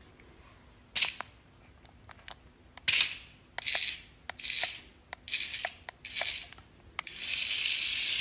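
Cat spitting and hissing at a toy snake: sharp spits, then about five short hisses and one longer hiss near the end.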